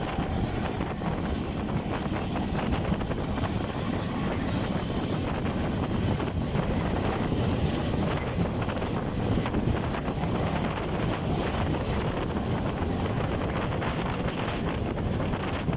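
Wind buffeting the microphone and a steady low rumble of a passenger carriage rolling along the track, heard from an open door of a moving steam-hauled train.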